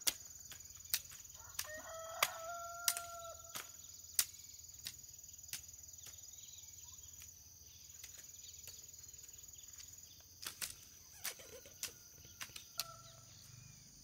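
A rooster crowing, one long held call about two seconds in and a fainter crow near the end, over a scatter of irregular sharp knocks.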